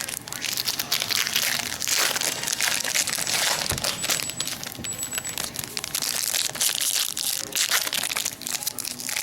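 Trading card pack wrappers crinkling and crackling steadily as packs are torn open and handled.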